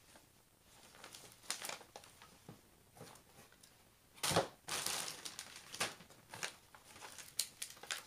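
Clear plastic release film being peeled back from a sticky diamond-painting canvas, crinkling and crackling in short irregular spurts, the loudest about four seconds in and more frequent after that.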